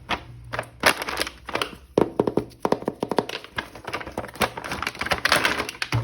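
Hands handling and opening plastic action-figure packaging: a run of sharp clicks and knocks, with a quick rattle of clicks about two seconds in and a crinkling rustle near the end.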